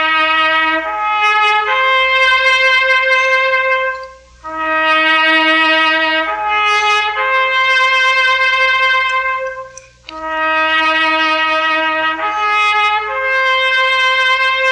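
A lone trumpet playing a slow ceremonial call in three phrases, each opening on a long low note and rising to higher held notes, with a short break between phrases.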